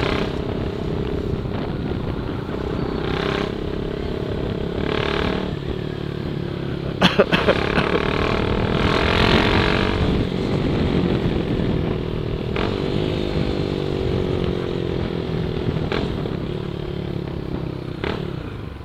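Honda CB Twister motorcycle engine running while riding, its pitch rising and falling with the throttle. A few sharp cracks come about seven seconds in.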